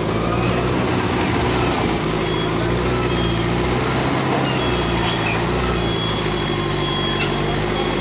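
Wheel loader's diesel engine running steadily as the machine works against a shop wall during demolition.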